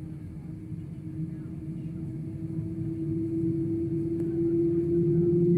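Airbus A330-300 on its takeoff roll, heard from inside the cabin: engine rumble with a steady tone that slowly rises in pitch, growing steadily louder as the aircraft accelerates.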